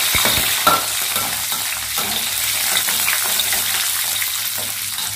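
Small dried anchovies (ikan bilis) sizzling as they fry in hot oil in a wok, stirred with a metal wok spatula that scrapes the pan now and then. They are being fried until crisp.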